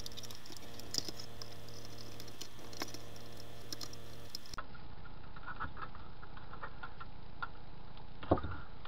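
Light clicks and ticks of a small screwdriver and small machine screws being worked as a Tortoise switch machine is fastened to a styrene bracket, over a steady low hum, with one sharper knock near the end.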